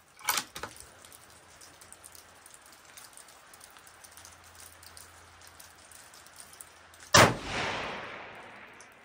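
A single rifle shot from a Seekins Precision Havak PH2 bolt-action rifle in 6.5 Creedmoor, fired at a steel target at about 600 yards. It comes about seven seconds in and echoes off the range, fading over about two seconds.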